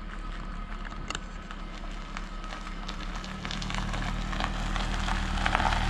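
A 30-series Toyota Prius driving across loose gravel after a hard launch, the tyres crunching and crackling over the stones above a steady low drivetrain hum. The sound grows louder from about halfway through as the car comes back toward the listener.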